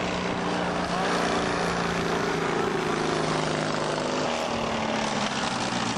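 Racing lawn mower engine running with a steady drone; its pitch shifts a little about four seconds in.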